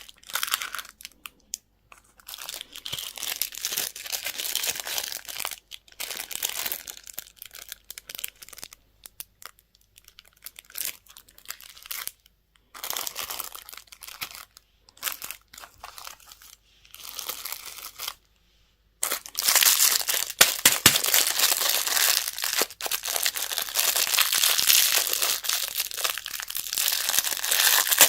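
Candy wrappers crinkling and tearing as they are opened, in short bursts with pauses between them, then continuous from about two-thirds of the way through.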